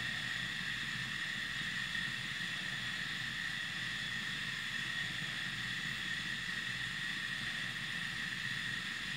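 Steady background hiss with a low hum and a constant high whine, unchanging throughout, with no distinct events.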